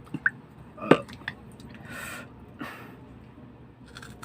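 Crisp chicharon being bitten and chewed, heard as a few sharp crunches, the loudest about a second in, then two short hissy sounds.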